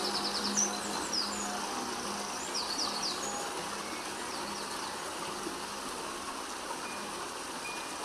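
Birds chirping, with a quick trill near the start and more chirps about three seconds in, over a steady rush of falling water from a thin waterfall. A faint low held music tone sits underneath in the first few seconds.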